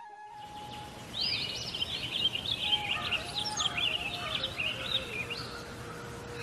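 Songbirds chirping and warbling rapidly over a steady hiss of outdoor ambience, which cuts in abruptly near the start, layered over a soft instrumental music line that holds a note and then steps through a slow melody.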